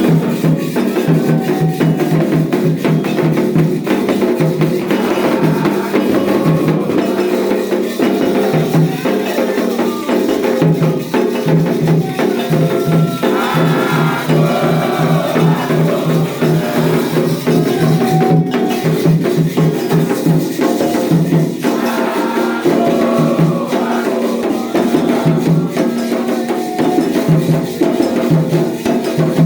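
Candomblé ritual music: hand drums and shakers keeping a steady, fast rhythm, with voices singing over them.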